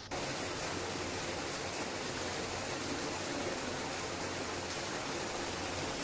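Decorative water fountain's many jets splashing down into their basin: a steady rush of falling water.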